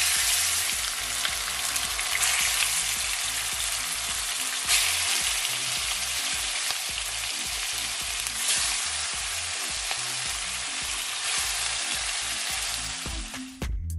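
Chicken pieces sizzling hard as they are laid into hot oil and dark caramelized brown sugar in a frying pan. The sizzle flares up each time a new piece goes in, about five times, and cuts off abruptly near the end.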